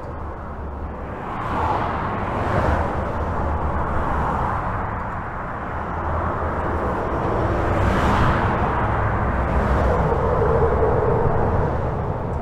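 Highway traffic heard from under a bridge: a continuous rush of tyre and engine noise that swells as vehicles pass, loudest about eight seconds in. A steady hum from one passing vehicle comes in near the end.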